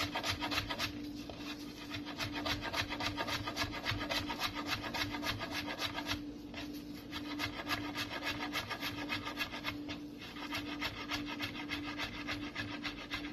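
Knife blade rapidly chopping fresh mint on a wooden cutting board: quick, regular knocks of the blade on the wood, several a second, with a few short pauses. A faint steady hum runs underneath.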